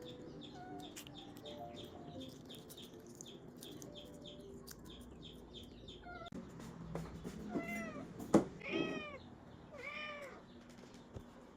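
Domestic cat meowing, about three arched meows in the second half, with one sharp click or knock among them.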